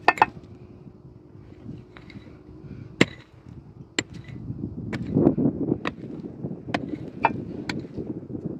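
A short-handled pick striking hard, stony soil: a sharp strike near the start, then strikes about once a second from about three seconds in, with gritty crunching and scraping of loosened earth and stones between them.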